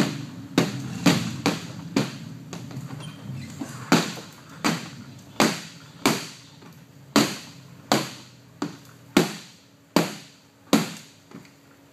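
Sneakered feet stomping repeatedly on a Plasti Dip-coated aluminium snowmobile tunnel. Each stomp is a sharp thud that rings briefly, coming roughly every half second to second, with lighter taps for a moment about two to four seconds in.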